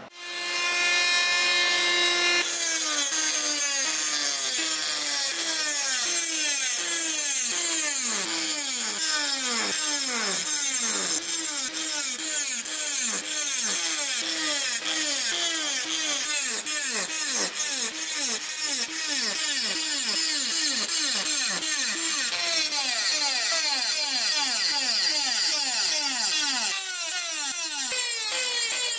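Handheld rotary tool with a small cut-off disc whining at speed, then grinding into a spring-steel sword blade. Its pitch drops each time the disc bites, two or three times a second, as the tool is worked along the marked lines.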